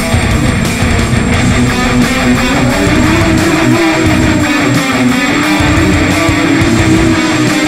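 Guitar-led music playing steadily.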